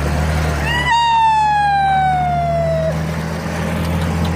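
A vehicle engine running steadily as a low hum. About a second in, a single siren-like tone rises briefly, then glides slowly down for about two seconds and stops.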